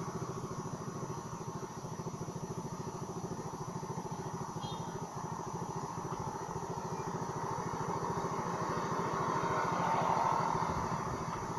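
Honda motor scooter's engine idling steadily with an even, fast low pulse while the bike stands still.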